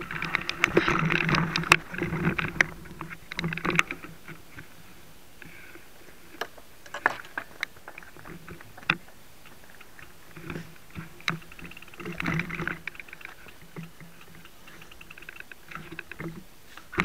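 Mountain bike rattling over a rough trail for about the first four seconds, then scattered clicks and knocks as the bike stops and is handled.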